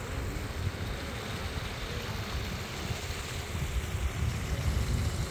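Outdoor street noise: a steady low rumble of road traffic, with wind buffeting the microphone.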